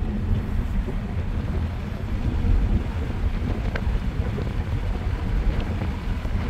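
Steady low rumble of road and wind noise inside a Kia car's cabin as it coasts in neutral at about 90 km/h.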